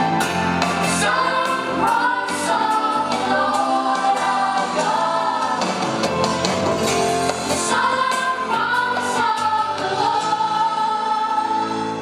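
Background music: a song with singing over a full accompaniment.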